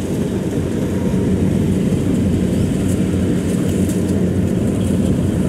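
Kubota DC70 rice combine harvester running steadily under load as it cuts lodged rice, a constant low diesel engine and machinery drone.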